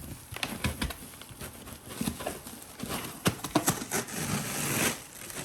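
Packaging being handled during an unboxing: a run of irregular clicks and knocks, with a longer rustle near the end.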